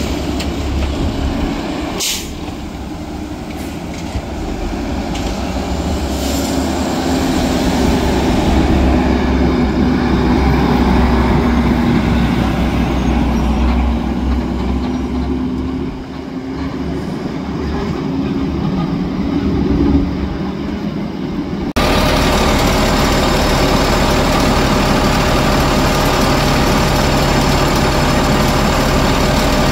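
Garbage truck engine running as the truck works along the street, its note rising and falling, with a brief sharp sound about two seconds in. About 22 seconds in it cuts abruptly to a garbage truck's engine idling steadily, heard close to its machinery.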